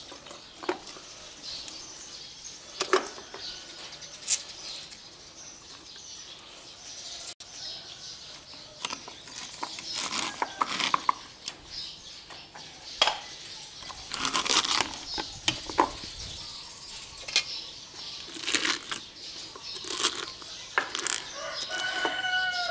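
Handfuls of shredded red cabbage rustling as they are pushed through a stainless steel funnel into a glass jar, with scattered clicks and knocks of metal on glass.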